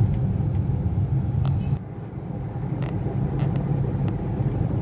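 Car cabin noise while driving: a steady low engine and road rumble, with a few light clicks and rattles. The rumble dips briefly about two seconds in, then picks up again.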